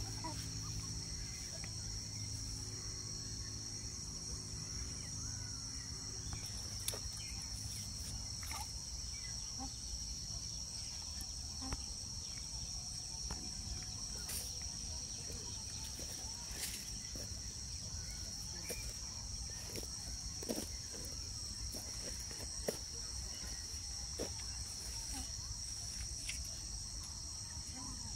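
Steady high-pitched chorus of insects, over a low rumble of outdoor background noise, with a few faint clicks.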